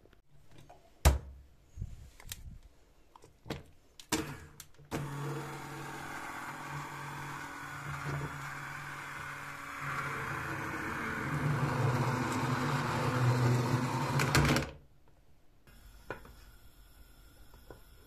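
Hand-held immersion blender running in a pot of softened, cooked yellow plums, puréeing them into marmalade: a steady motor hum for about ten seconds that gets louder in its second half, then cuts off suddenly. A few knocks and clicks come before the motor starts, the sharpest about a second in.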